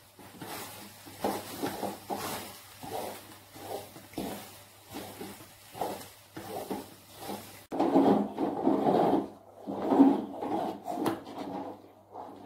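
Wooden spatula scraping and stirring a thick sticky sesame-and-coconut mixture around an aluminium wok, in repeated rubbing strokes about one or two a second. The scraping turns louder and denser about eight seconds in.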